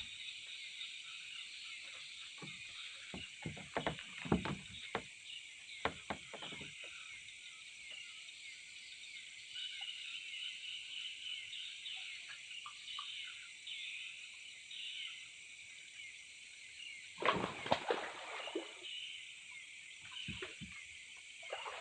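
Steady high chirring of night insects, with a run of short knocks and splashes a few seconds in and a louder burst of splashing about 17 seconds in, as a hooked fish is played and brought in.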